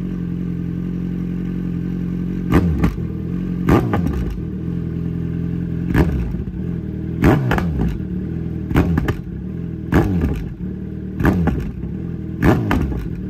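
Kawasaki Z900's inline-four running through Akrapovic headers and an SC-Project S1 muffler with the dB killer in, idling steadily and blipped about eight times. Each blip rises and falls quickly with sharp pops from the exhaust, the bike spitting flames on the overrun.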